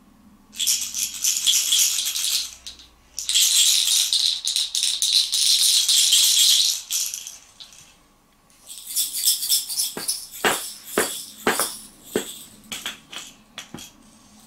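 Small wooden shaker blocks being shaken, their loose filling rattling in two long spells. After a pause come shorter shakes with a series of sharp knocks that grow fainter near the end.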